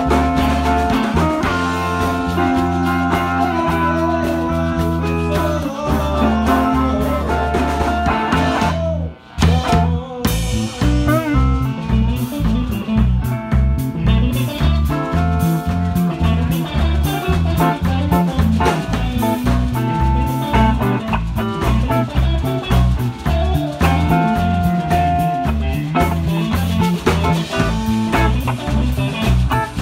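Live blues band jam, with electric guitar, bass and drums. The band stops briefly about nine seconds in, then comes back in with a steady pulsing beat.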